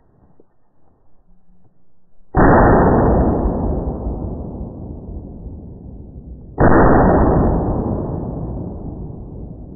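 Two shots from a double-barrelled shotgun fired at a flushed woodcock, about four seconds apart, played slowed down so that each is a deep, drawn-out boom that fades away slowly.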